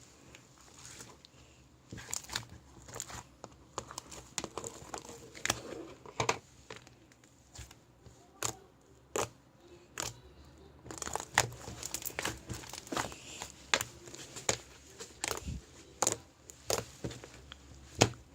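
Slime being squeezed and stretched by hand, giving irregular crackling pops and clicks, more frequent in the second half.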